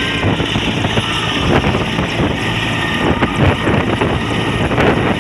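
Mi-17 twin-turbine military helicopter running on the ground with its main rotor turning: a steady loud rotor rumble and turbine noise with a thin high whine over it, and rotor wash buffeting the microphone.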